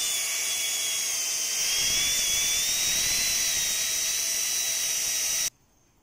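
Vorwerk Kobold VK135 vacuum cleaner running on full power: a steady rush of air under a high motor whine that wavers slightly in pitch. It cuts off suddenly about five and a half seconds in.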